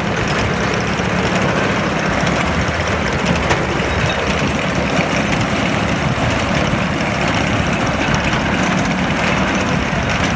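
Kubota three-cylinder diesel engine of a rubber-tracked crawler carrier idling steadily.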